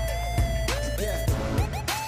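Background music with a steady beat and heavy bass under lead notes that slide up into pitch.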